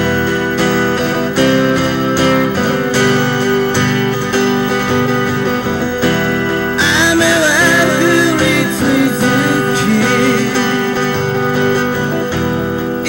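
Acoustic guitar strumming chords in a slow ballad, with a wavering lead melody joining about seven seconds in.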